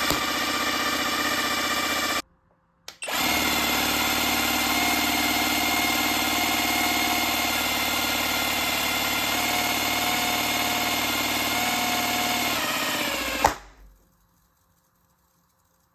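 Gemmy hamster toy's small motor and gearbox whirring steadily, overdriven from a bench power supply at 20 and then 25 volts, with a brief break about two seconds in. Near the end it gives a sharp pop and stops dead: the toy's circuit has failed and shorted the supply.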